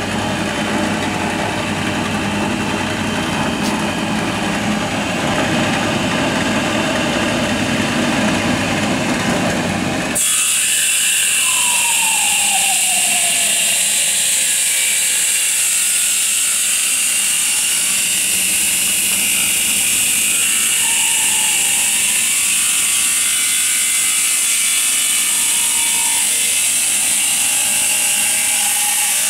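A WFP-1 wood dissection machine running steadily and loudly, its rollers feeding wooden blocks through saw blades that split them into thin strips for BBQ sticks. About ten seconds in, the sound changes abruptly from a dense lower-pitched din to a bright, steady hiss.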